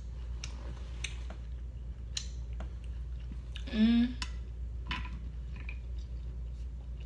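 A person chewing a mouthful of food, with many small wet mouth clicks and smacks. About four seconds in comes one short hummed vocal sound, the loudest moment.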